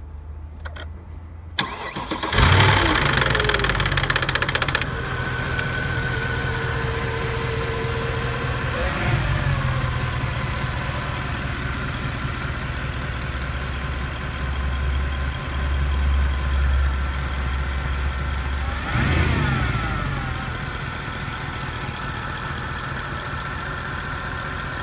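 2008 Mercedes-Benz C63 AMG's 6.2-litre M156 V8 starting: it cranks, fires with a harsh rattle for about two and a half seconds, which stops abruptly, then settles to a steady idle with two brief throttle blips. The startup rattle is the known M156 camshaft adjuster fault: worn locking-pin holes let the adjusters slap back and forth until oil pressure builds.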